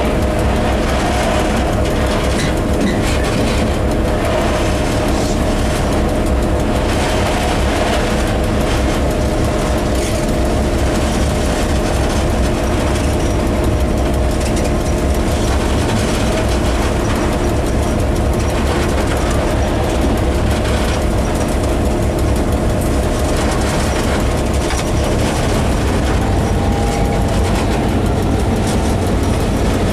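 Diesel locomotive under way, heard from inside its cab: the engine runs with a steady low drone and hum while the wheels knock irregularly over the track.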